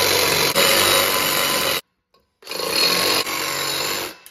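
Milwaukee cordless reciprocating saw cutting an aluminium plate held in a bench vise. It runs, stops sharply just under two seconds in, and starts again about half a second later for another burst of cutting.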